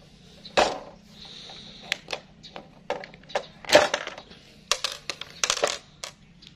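Irregular plastic clicks and knocks as the yellow housing half of a DeWalt brushless cordless drill is pried and lifted off by hand, with small screws clinking on the tabletop. The loudest knock comes a little under 4 seconds in.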